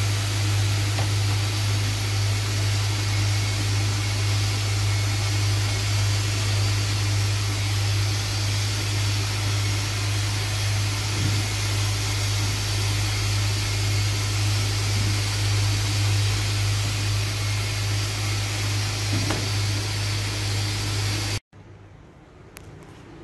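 Electric vacuum pump of a vacuum-forming machine running with a steady hum and hiss, holding the heated acrylic sheet drawn down over the letter mould. It stops abruptly near the end.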